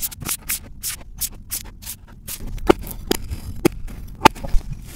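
Kinetic sand being cut with a knife blade, making a run of crisp, crunchy strokes about three a second. A few louder, sharper crunches come near the end.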